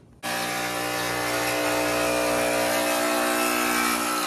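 Jigsaw with a metal-cutting blade sawing through a carbon fiber car hood. It starts abruptly and runs at a steady whine for about four seconds, stopping right at the end.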